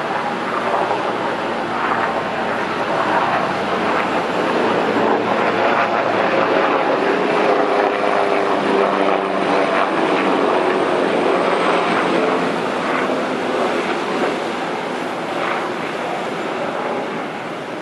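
Boeing 929 Jetfoil hydrofoil ferry passing foilborne, its gas turbines and waterjets giving a loud, steady jet-like rush that swells toward the middle and eases near the end. A faint high whine falls slowly in pitch as it goes by.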